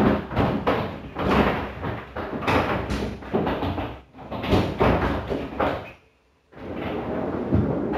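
Plastic freezer baskets clattering and scraping as they are lowered and fitted into the bottom freezer drawer of a Samsung French door refrigerator: a quick series of knocks and rattles, a short pause about six seconds in, then more scraping.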